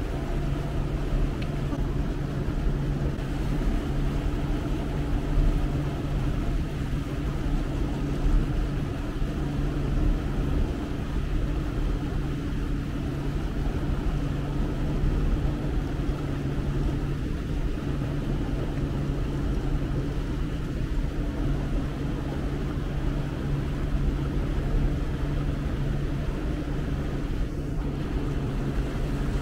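Motorboat engine running at a steady speed, a low even drone.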